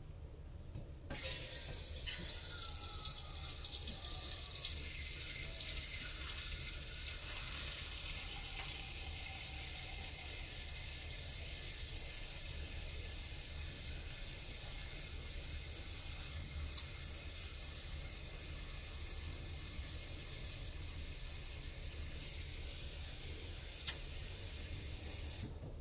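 Kitchen faucet running water into a cooking pot at the sink, a steady splashing hiss that starts about a second in and stops just before the end, with a single short click near the end.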